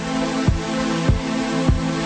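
Background music with a steady low drum beat, a little under two beats a second, over sustained low held tones.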